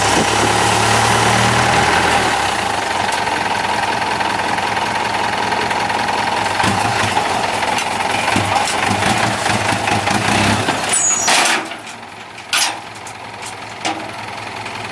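Six-wheel dump truck's engine running steadily under load while the bed is tipped up. About eleven seconds in, the engine note drops sharply as the bed starts to come down, and two loud clunks follow.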